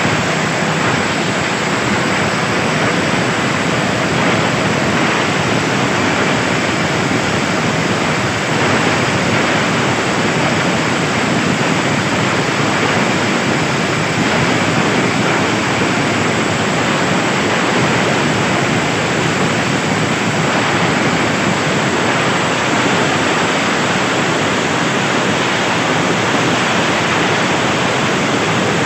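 A machine running steadily: a loud, even rushing noise with no clear beat or pitch, unchanging throughout.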